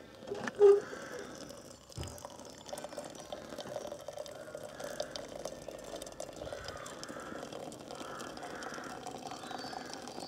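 Just-boiled water poured from an aluminium camp kettle into a stainless steel vacuum flask, a steady trickling fill from about two seconds in. A brief clank sounds about half a second in as the kettle is lifted.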